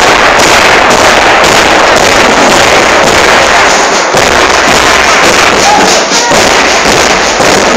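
Marching drum band playing, its big bass drums beaten right beside the microphone: a dense, continuous pounding, loud enough to come through distorted.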